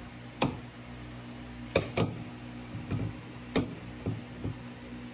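Sharp metallic clicks and knocks, about seven in irregular succession, as pliers work at the retaining clips of a universal joint on a Triumph Spitfire axle shaft.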